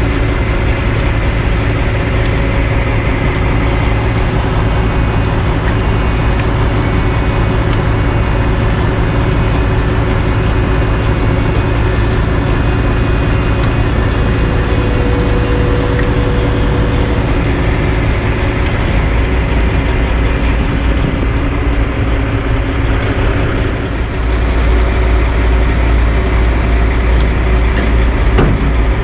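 Heavy diesel engines of a Western Star dump truck and a CAT asphalt paver running steadily side by side. The low engine drone grows louder about 24 seconds in.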